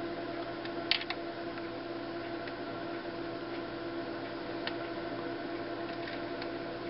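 Small clicks and ticks of tiny plastic model-railroad parts being handled as a spring is fitted into an HO coupler box, with one sharp click about a second in, over a steady background hum.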